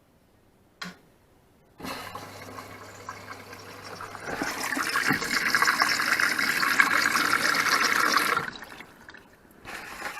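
Beko washing machine taking in water at the start of a 60-degree wash: a click, then a low hum and water rushing in through the detergent drawer, much louder from about four seconds in and easing off near the end.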